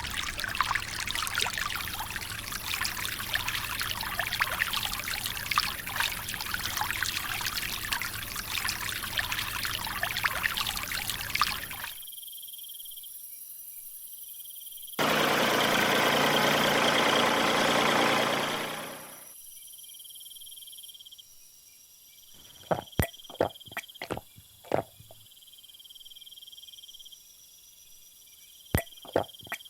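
Water splashing and trickling for about twelve seconds, then a loud rush of noise for about three seconds, with crickets chirping steadily in the quieter stretches and a few sharp clicks near the end.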